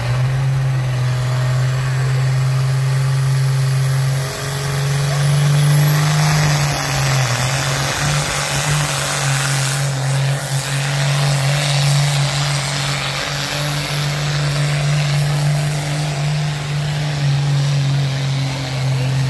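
Diesel pickup truck in a truck pull, its engine held at high revs under full load with a steady drone, dipping briefly about four seconds in and then running on.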